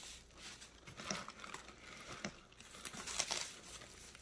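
Plastic wrap crinkling and rustling as it is pulled off a leather tote bag's handles, with irregular crackles that come louder about a second in and again near the end.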